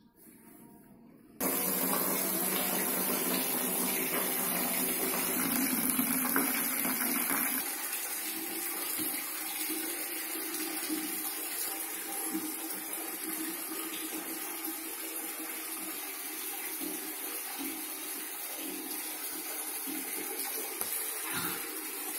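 Steady rush of running water, like a tap or a filling tub. It starts suddenly about a second and a half in and eases slightly about eight seconds in.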